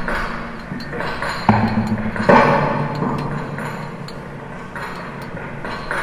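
Sparse experimental percussion: a few sharp struck hits, the loudest about one and a half and two and a half seconds in, each followed by a low ringing tone that slowly fades.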